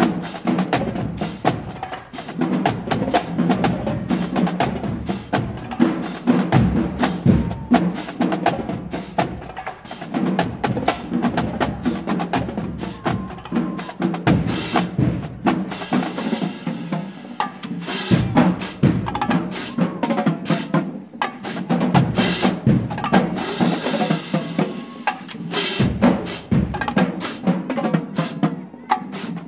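Marching band drumline playing a cadence: fast, dense snare strikes over tenor and bass drums, with cymbals ringing out twice partway through.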